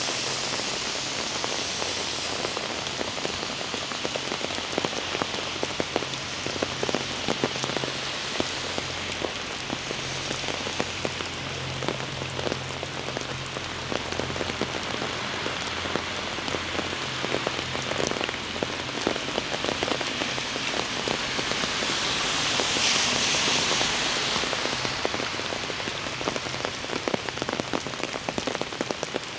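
Heavy rain falling, with a dense hiss and many close drops ticking steadily. A low steady hum runs through the middle, and a hiss swells and fades about three quarters in.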